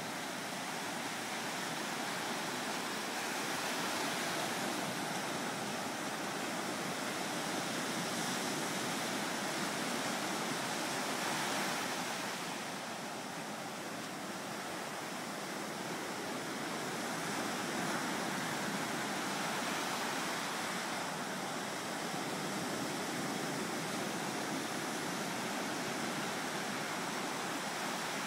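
Ocean surf: small waves breaking and washing up a sandy beach, a steady hiss of foam that swells and eases slowly as each wave comes in.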